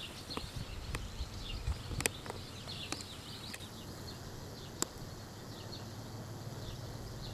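Outdoor ambience: a low wind rumble, faint high bird chirps over the first few seconds, and a few sharp ticks, about three in all.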